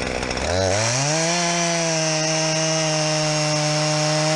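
Chainsaw engine rising to high revs about half a second in, then held steady at a high, even pitch.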